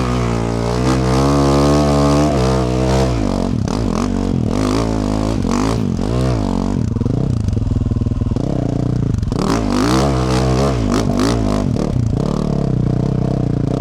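Yamaha YZ450F dirt bike's single-cylinder four-stroke engine through a Yoshimura RS-12 exhaust, running at a fairly even idle for the first couple of seconds, then revved up and down again and again as the bike is ridden. Clattering knocks come in the second half.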